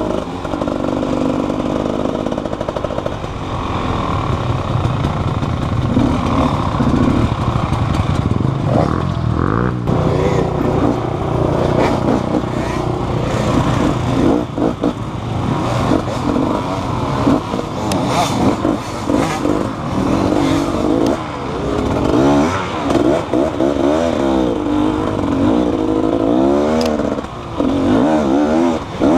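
Motorcycle engine running and revving, its pitch rising and falling again and again.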